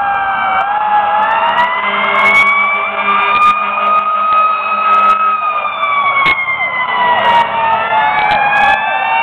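Several fire-truck and emergency-vehicle sirens wailing together at once, their pitches overlapping. The strongest rises slowly for about five seconds and then falls, while other sirens cross it at different pitches.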